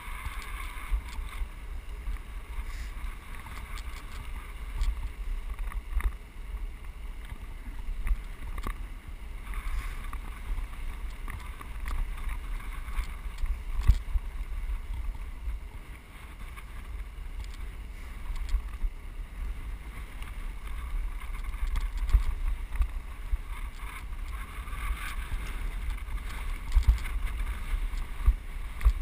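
Wind rumbling on an action camera's microphone while riding a bicycle along a gravel road, with steady tyre noise on the loose surface and scattered short knocks and rattles from the bike over bumps.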